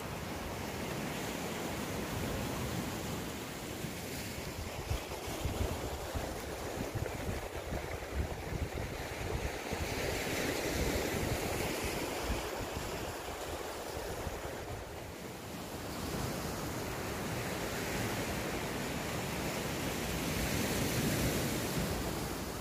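Sea waves washing ashore, rising and falling in swells, loudest about halfway through and near the end. Wind buffets the microphone with low rumbling in the first half.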